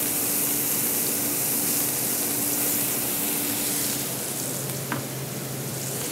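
Summer succotash vegetables (squash, peppers, corn, onions) sizzling steadily in a sauté pan over a gas flame, with a faint steady hum underneath and one small click about five seconds in.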